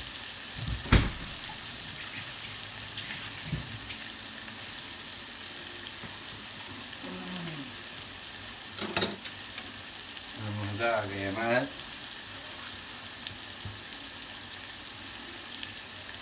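Onion and tomato masala sizzling steadily in hot oil in a kadhai as it is roasted, with two sharp knocks, about a second in and about nine seconds in.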